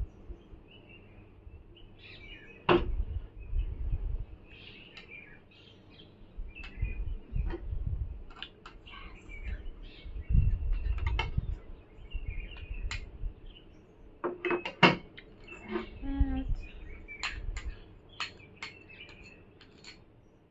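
Small birds chirping on and off, mixed with clinks and knocks of plates, cutlery and small ceramic bowls being handled at the table. The sharpest knocks come about three seconds in and again around fifteen seconds in, and dull low thumps fall in between.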